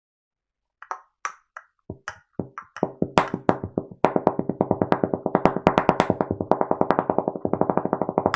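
Background music of short, pitched instrumental notes: a few sparse notes, then from about four seconds in a fast, even run of repeated notes.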